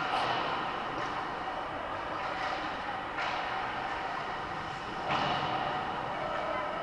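Hockey rink sound of play at the far end of the ice: a steady reverberant arena hum with a few sharp knocks, near the start, about three seconds in and about five seconds in, that echo around the hall.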